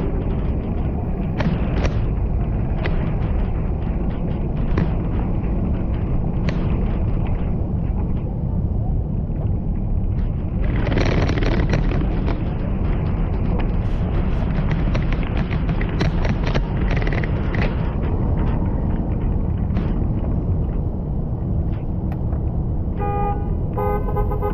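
Steady low rumble of a stroller and ride-on kid board rolling along a city sidewalk, picked up by a camera mounted on the stroller, with scattered knocks as the wheels cross pavement joints and a swell of street noise about eleven seconds in. Two short tonal beeps come near the end.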